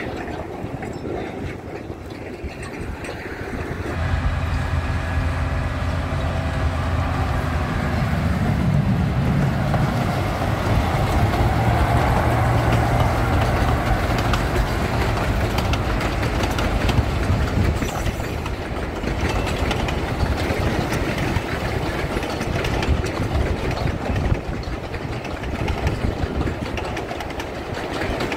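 Sugar cane tramway train passing. A locomotive engine's steady low hum starts about four seconds in and grows louder. It fades away after the middle, while a continuous clatter of wheels on the rails carries on.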